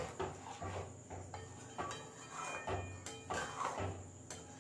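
Spoon stirring and scraping through thick jaggery-and-mango pickle in a metal pan: irregular scrapes with light clinks against the pan.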